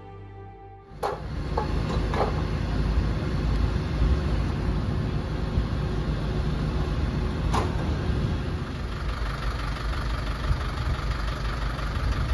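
Music fades out about a second in. It gives way to the steady low rumble of fire engines running, with a few sharp knocks.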